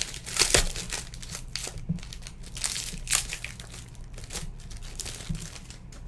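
Foil wrapper of a trading-card pack being torn open and crumpled in the hands: an irregular run of sharp crinkles and crackles.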